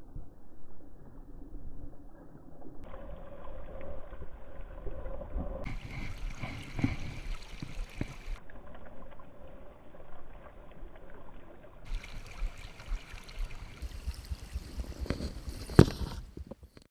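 River water rushing and lapping just below the microphone, alternately muffled and clearer, with scattered knocks and one sharp, loud knock near the end as the camera is handled.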